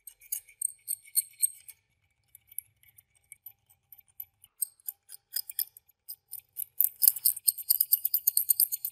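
Metal blade scraping rust off the flights of a rusty meat grinder auger: short scratchy strokes, sparse at first and coming quick and dense from about seven seconds in.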